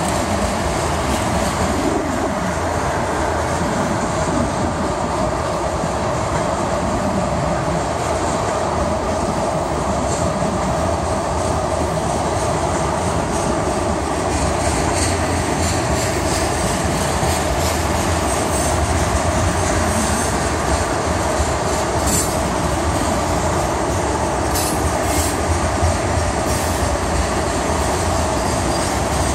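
Tank cars of a long freight train rolling past on the main line: a steady noise of steel wheels running on the rails, with a few sharp clicks in the second half.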